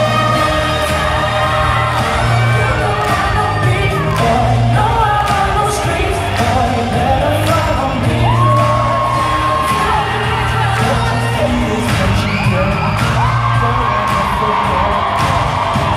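Live pop music with singing, a voice holding long notes over a steady beat, heard from among the audience in a large arena.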